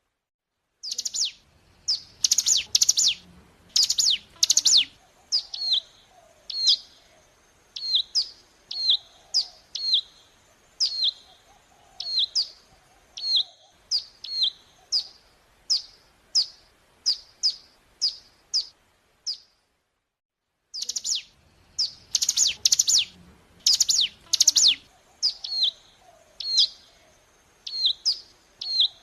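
Ciblek gunung (a prinia) singing: a quick burst of sharp, high notes, then a long run of short downslurred chirps, about one or two a second. After a short break near the end the same burst and run of chirps start over, as on a looped lure recording.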